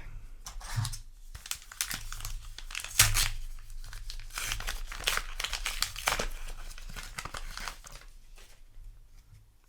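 Foil trading-card booster pack wrapper crinkling and tearing as it is handled, with a sharp rip about three seconds in; the rustling thins out near the end.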